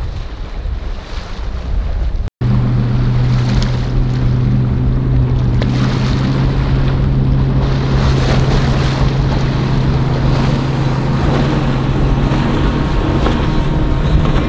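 Wind buffeting the microphone over rough water with boat noise. After a sudden cut about two seconds in, a steady low boat-engine drone runs under the wind and wave noise.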